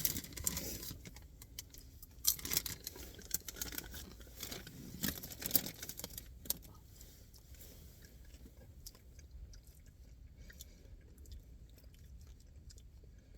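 Chewing and crunching of chocolate-coated Smartfood Marshmallow Hot Cocoa popcorn. There are many crisp crackles over the first six seconds or so, growing fainter after that.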